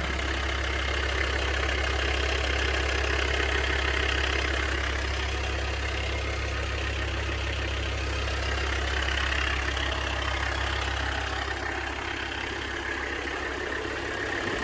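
Mercedes OM617 inline-five turbo diesel idling steadily in a 1991 Jeep Comanche, the low hum easing slightly near the end.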